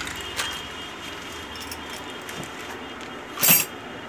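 Steady room noise with a faint click near the start and one short, sharp clack about three and a half seconds in: handling noise from unpacking accessories out of a carton.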